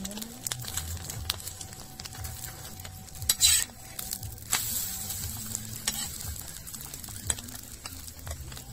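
Egg frying on a flat iron tawa under a paratha, sizzling, with a metal spatula clicking and scraping on the pan. About three and a half seconds in, the spatula scrapes under the roll to flip it, and the sizzle turns louder and brighter after that.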